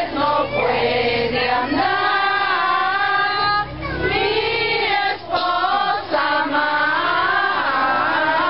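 A group of voices singing a traditional Christmas posada song together, phrase by phrase with short breaks between lines.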